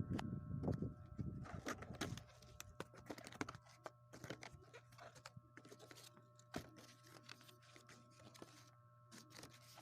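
Faint handling noise: scattered small clicks and rustles, denser in the first two seconds and sparser after, over a steady low hum.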